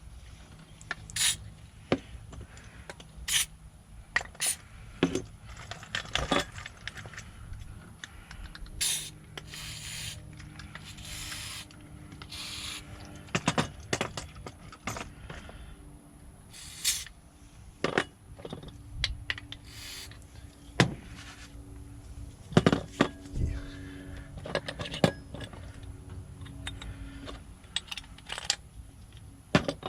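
Scattered clicks, clacks and scrapes of a locksmith handling his tools and lock hardware, with a few short hissing scrapes partway through.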